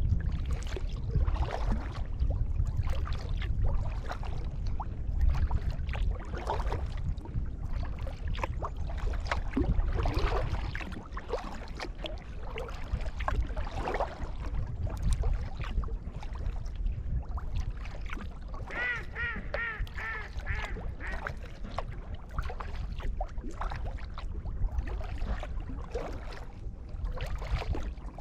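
Kayak paddle strokes splashing and dripping in the water over a steady low rumble. About two-thirds of the way through, a duck quacks about five times in quick succession.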